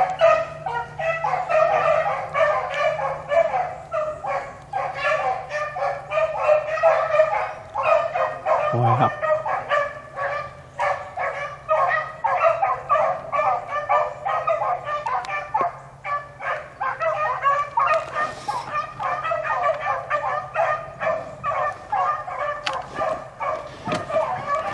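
A pack of beagle hounds baying continuously while running a rabbit's track, many voices overlapping in quick repeated calls.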